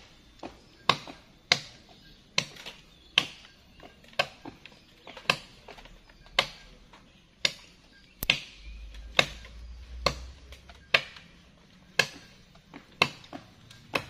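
Repeated sharp chopping strikes of a hand-held blade biting into teak wood, about one a second in an even, unhurried rhythm.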